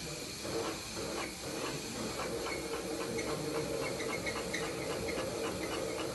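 Industrial sewing machine stitching a boot upper. The motor hums steadily from about half a second in, with the needle clicking about three or four times a second, over a steady background hiss.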